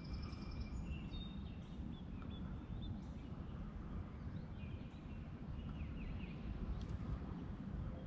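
Birds singing and calling, with thin high whistled notes and chirps, over a steady low rumble.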